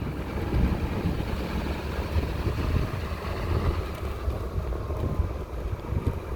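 2002 GMC Sierra 2500HD's LB7 Duramax 6.6-litre V8 turbodiesel pickup running at low speed with a steady low rumble and a faint whine that drifts slightly in pitch around the middle. The owner hears it as a whirring that shows only at low speeds and suspects the Allison transmission pan area.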